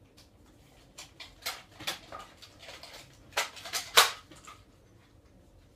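A run of short clicks, knocks and rustles, irregularly spaced, with the loudest few a little past the middle.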